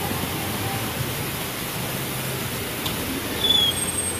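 Steady rushing background noise, with a sharp click and then a brief high squeak near the end as a glass lobby door is pushed open.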